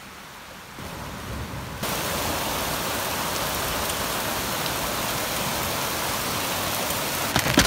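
Muddy flash-flood water rushing down a creek channel, a steady loud rush that comes up in two steps in the first two seconds. A few sharp knocks come in at the very end.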